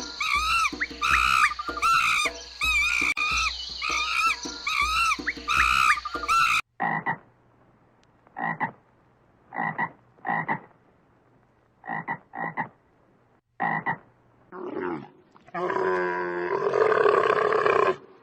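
Animal calls. A dense chorus of overlapping, repeated calls cuts off abruptly. Then come single short calls about once a second, and near the end one longer call.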